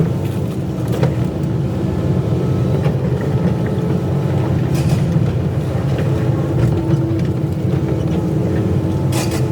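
Excavator's diesel engine running steadily under work, with brief hisses at the start, about five seconds in and near the end.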